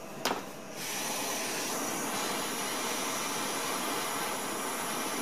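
Propane blowtorch being lit with a short click, then from just under a second in its flame burning with a steady hiss as it heats a brass fitting for soldering.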